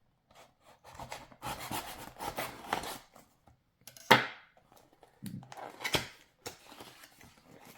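A toy's packaging being handled and torn open by hand: bouts of rustling and crinkling, with a sharp snap a little after four seconds and a few smaller clicks after it.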